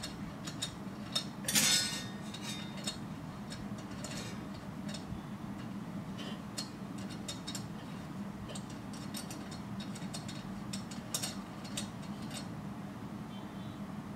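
Small stainless steel toy pots, lids and utensils clinking and clattering as they are picked up and set down, with a louder metallic clatter about two seconds in and another run of clinks near the end, over a steady low hum.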